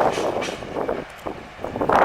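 Train running, a loud uneven rumble with wind buffeting the microphone, dipping briefly about a second in.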